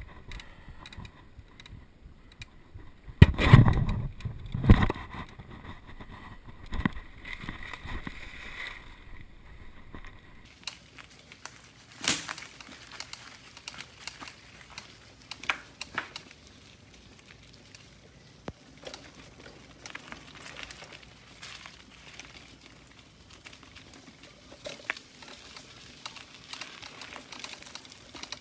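Mountain bike with a seized front fork rattling and clunking over a rough dirt trail, tyres crunching on dry leaves. Two hard knocks come about three and a half and five seconds in, and another near twelve seconds.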